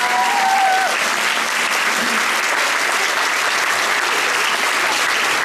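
Audience applauding steadily, with a drawn-out voice over the clapping for about the first second.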